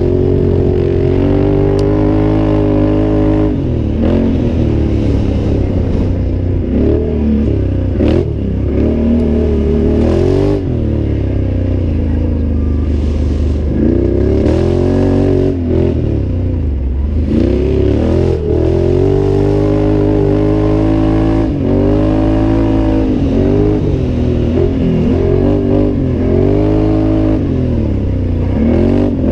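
2014 Can-Am Outlander 800's V-twin engine being ridden hard, revving up and falling back over and over as the throttle is worked, its pitch rising and dropping every second or two.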